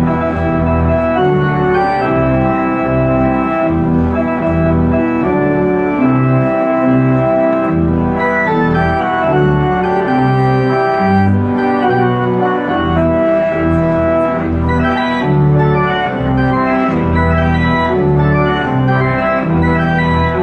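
Church pipe organ playing a lively piece in full sustained chords over a bass line that moves about twice a second.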